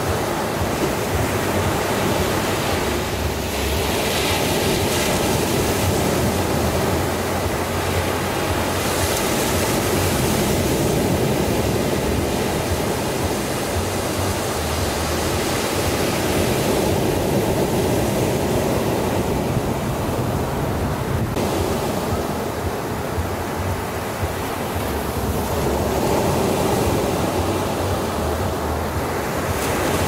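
Ocean surf breaking and washing up onto a sandy beach: a steady rush of water that swells every several seconds as each wave breaks.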